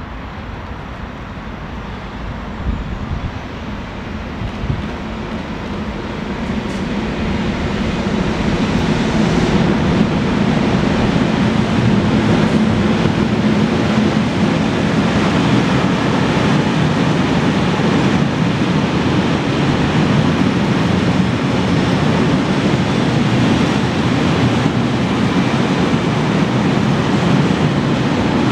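A freight train of tank wagons hauled by an FS E.633 electric locomotive approaches and passes close by. The noise grows over the first ten seconds or so, then settles into a steady rumble of steel wheels on the rails as the tank wagons roll past.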